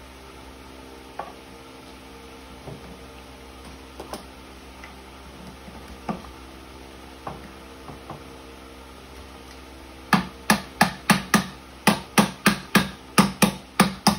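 Scattered light clicks and knocks of plastic parts being handled, then from about ten seconds in a run of sharp, evenly spaced clicks, about three a second, from a ratcheting PVC pipe cutter being worked.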